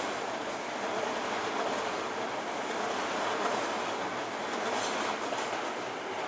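Tokyo Metro Marunouchi Line train running along the open track, a steady rolling noise of wheels on rails.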